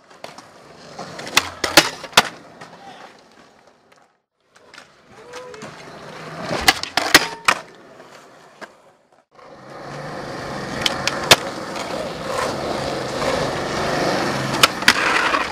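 Skateboard wheels rolling on smooth concrete, with sharp clacks of the board popping and landing. The sound breaks off twice briefly; in the last part the rolling is loud and steady, with a few more clacks.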